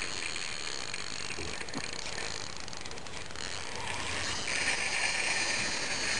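Fishing reel's drag buzzing steadily as a hooked carp pulls line off the light two-pound monofilament, growing a little louder after about four and a half seconds.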